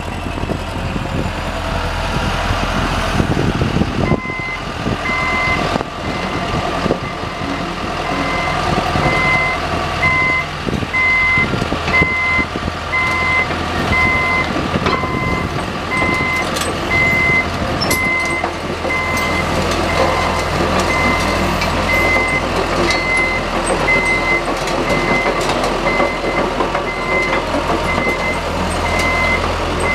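2007 John Deere 160D LC excavator's diesel engine running while the machine moves on its tracks, its alarm beeping steadily from about four seconds in, with occasional clicks and knocks.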